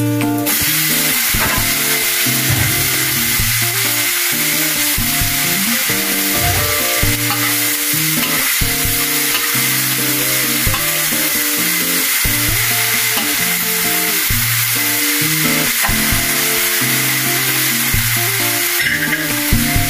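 Morning glory and pork cracklings sizzling in a hot wok as they are stir-fried with a metal spatula. The sizzle starts about half a second in and drops away shortly before the end, with background music throughout.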